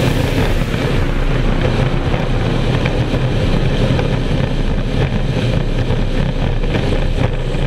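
F4 racing powerboat's outboard engine running steadily at speed, heard from an onboard camera on the deck, with wind buffeting the microphone.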